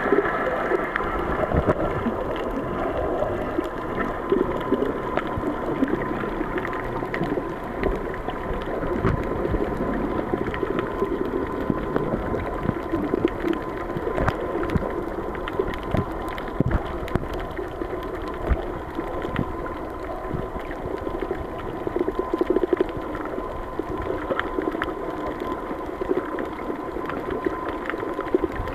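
Underwater ambience picked up by a submerged camera: a steady muffled water noise with many small crackles and a faint steady high tone.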